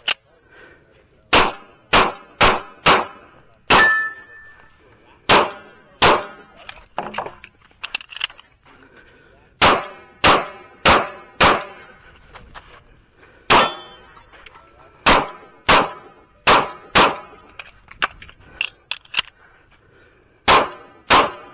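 Kimber Custom II 1911 pistol in .45 ACP firing about eighteen loud shots, mostly as pairs about half a second apart, with pauses of one to three seconds between pairs.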